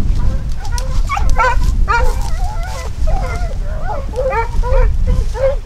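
Hunting dogs yipping and whining in a quick run of short, wavering calls, over a steady low rumble.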